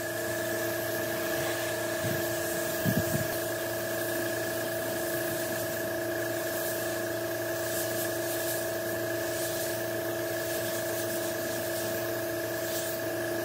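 Compressed-air spray gun hissing as wood finish is sprayed onto a panel, over a steady machine hum with several held tones. A couple of knocks come about three seconds in.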